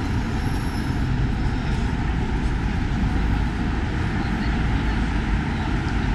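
Steady road traffic noise of a busy city avenue, a continuous rumble of passing vehicles with no single event standing out.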